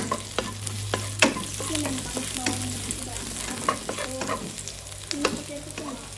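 Sliced shallots and garlic sizzling in hot oil in a wok. A spatula stirs them, with irregular scraping clicks and knocks against the pan, over a steady low hum.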